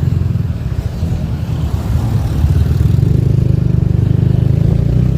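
Motorbike engine running as it rides along, heard from the pillion seat, with a fast, even pulse that gets louder from about halfway.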